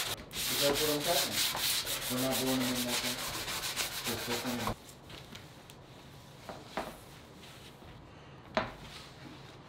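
Vanity countertop being hand-sanded with 150-grit sandpaper to scuff the surface before epoxy: quick, rhythmic scrubbing strokes that stop abruptly about five seconds in.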